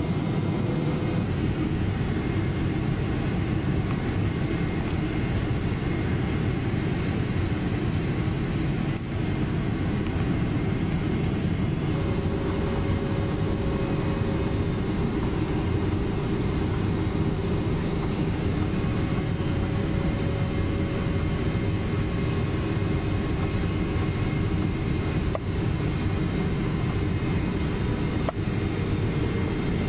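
Steady in-cabin noise of a Boeing 777 on descent: turbofan engine and airflow noise heard from a window seat beside the engine. Faint steady whining tones sit on top, with a new one coming in about twelve seconds in.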